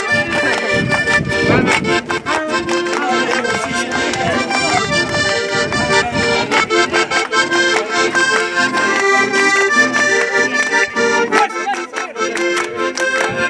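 Piano accordion playing a traditional dance tune in a steady run of held chords and melody notes.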